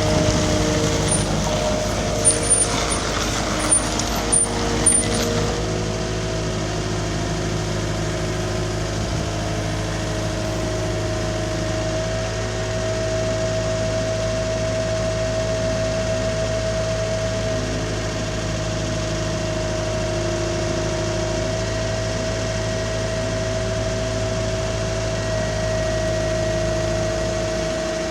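Cat 259D compact track loader's diesel engine running steadily. A few sharp metallic knocks come in the first five seconds.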